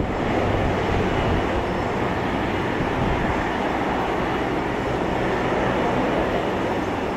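Steady rushing engine noise from aircraft taxiing: an Airbus A330-200's Rolls-Royce Trent 700 turbofans and a twin turboprop close by, with a low steady hum underneath.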